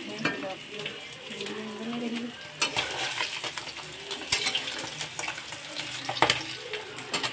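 Turmeric-coated fish pieces frying in hot oil in a wok, sizzling steadily, with a few sharp knocks of a utensil against the pan.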